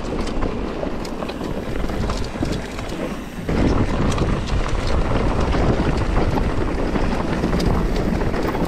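Mountain bike rolling down a dirt trail: tyre noise on the ground and a constant clatter of knocks and rattles from the bike, with wind on the microphone. It gets louder about three and a half seconds in.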